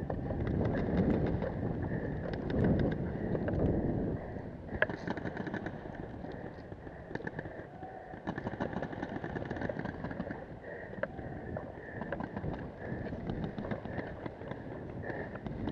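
Footsteps on dry grass and rattling gear as a paintball player moves, loudest in the first few seconds, with scattered sharp pops of paintball markers firing.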